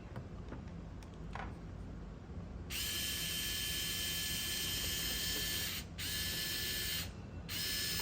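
Small electric screwdriver motor whining as it drives screws in a radio transmitter's case: one run of about three seconds, then two short runs of about a second each.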